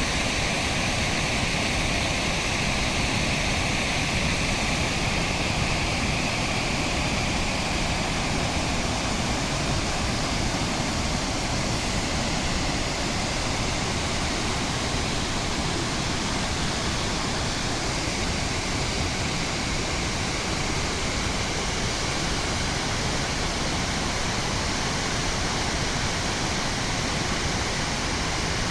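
Water rushing steadily over Fukiware Falls, a broad waterfall on the Katashina River.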